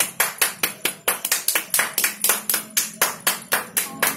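Hands clapping in applause, a quick steady rhythm of about four to five sharp claps a second.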